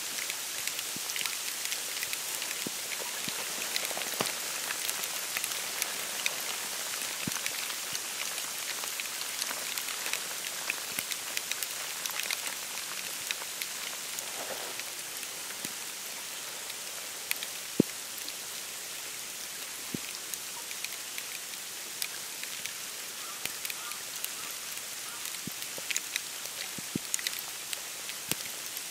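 Snowfall pattering steadily on reeds, branches and open water: a soft, even hiss full of small ticks, with a few sharper drops now and then, the sharpest about 18 seconds in.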